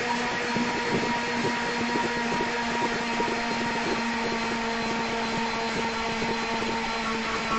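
Indoor bike trainer whirring steadily under an all-out sprint effort: a constant hum with a rushing noise behind it.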